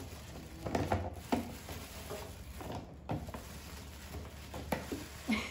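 A few scattered light knocks and taps of hard objects being handled, over a faint steady low background.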